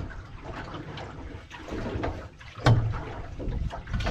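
Sea water sloshing and lapping against a small boat's hull, with one sharp knock a little past halfway that is the loudest sound.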